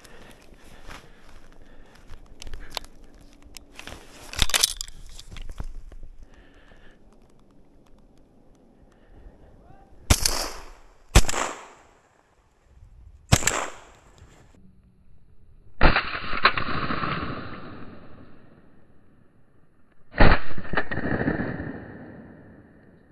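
Shotgun fire: a few short, sharp bangs, then two loud blasts that each ring out and die away over a couple of seconds. Before them, footsteps crunch in snow.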